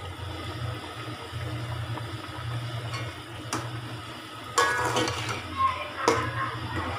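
A metal spatula stirring yogurt into a thick potato gravy in an aluminium pot, with soft wet stirring sounds and a couple of sharp taps of metal on the pot about three seconds in. A steady low hum runs underneath.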